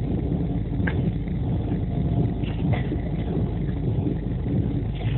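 Running noise of the Sealdah–New Delhi Duronto Express (12259) heard from inside a coach at speed: a steady low rumble of wheels on the track, with a few faint clicks about a second in and again near three seconds.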